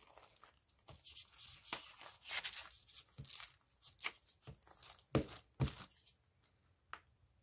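A glue stick rubbed in scratchy strokes over paper while the paper sheets are handled and shifted, with two sharper knocks a little after five seconds in.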